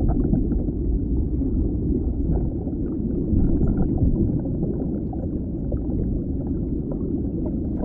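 Muffled underwater ambience: a low, steady rumble of moving water with faint scattered clicks.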